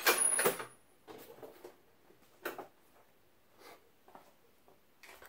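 Metal hand tools and parts clattering on a workbench: one loud clatter at the start, then a few light clinks and taps.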